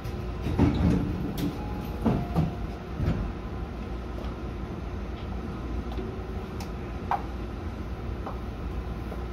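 Steady low hum inside the cab of a Tobu 50000-series electric train standing almost still. There are several clunks and knocks in the first three seconds and a couple of sharp clicks later.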